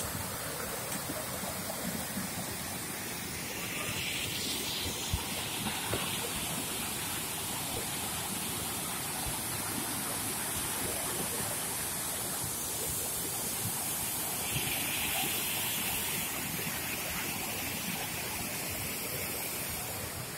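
Steady rush of a small rocky stream tumbling in white-water cascades over boulders.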